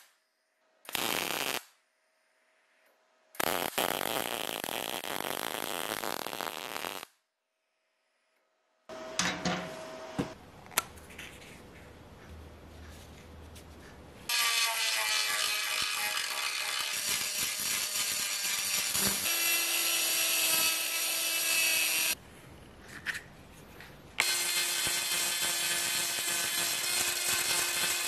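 MIG welder crackling in short bursts, the longest about three seconds, as a small steel piece is welded on. Then an electric die grinder with a pink mounted grinding stone spins up with a whine and grinds the steel weld bead. It runs for about eight seconds, stops briefly and starts again.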